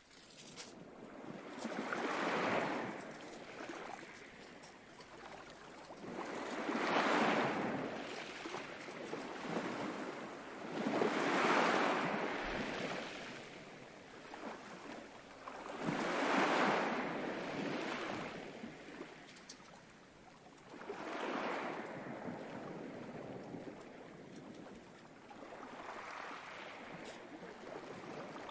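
Recorded ocean waves rolling in and washing back. There are six swells, about four to five seconds apart.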